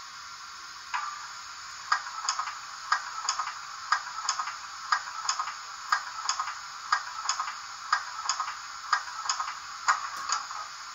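Märklin BR 56 model steam locomotive's sound function playing through a small speaker: a thin, rhythmic ticking beat with no bass, in pairs about once a second. It starts about a second in and stops near the end.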